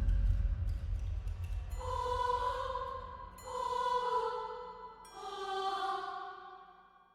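Horror sound effect: a low rumble dying away, then three held eerie choir-like notes, each about a second and a half long, the third one slightly lower, fading out near the end.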